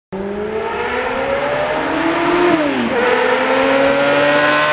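Yamaha FZR sport motorcycle's inline-four engine accelerating hard, the pitch climbing, dropping briefly about two and a half seconds in as it shifts up a gear, then climbing again as the bike comes closer.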